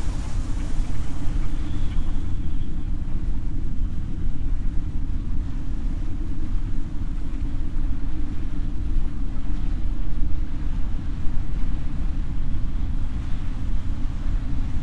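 Steady, low rumble of wind and sea surf at the shore.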